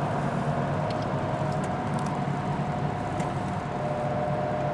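Steady engine and tyre noise heard from inside a car's cabin while driving through a road tunnel, with a steady whine running through it.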